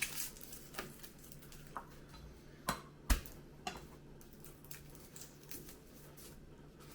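Scattered light taps and clicks of garlic cloves being handled and peeled on a kitchen work surface, with two sharper knocks about three seconds in, over a faint steady hum.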